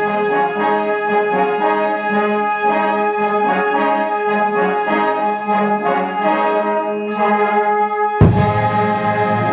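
Fanfare band playing film music, brass to the fore, with held chords and moving lines. A loud full-band accent comes about eight seconds in.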